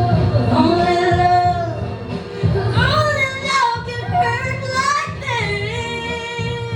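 Music with singing: a voice holding long, wavering sung notes over steady accompaniment.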